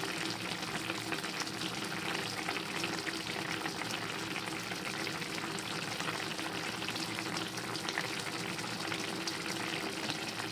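Milkfish paksiw simmering in its vinegar and oil broth in an open pan: a steady crackle of many small bubbles popping.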